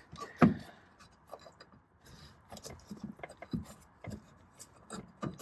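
Scattered light clicks, taps and rubbing from hands working at a 1969 Volkswagen bus's throttle pedal linkage, with one sharper knock about half a second in.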